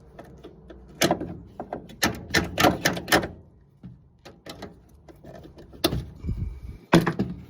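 Sharp metallic clicks and knocks as a pickup door's check strap is worked up and out of the door: one about a second in, a quick run of them between two and three seconds in, and two louder knocks near the end.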